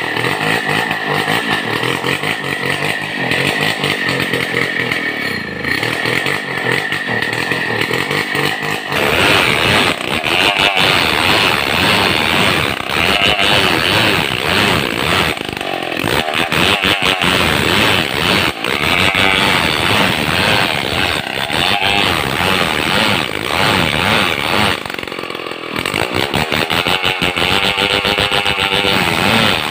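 Two-stroke chainsaw ripping lengthwise through a squared log of madang timber to mill boards. The engine note is steadier at first, then gets louder and rougher about nine seconds in as the saw is worked along the cut, easing off briefly near the end before picking up again.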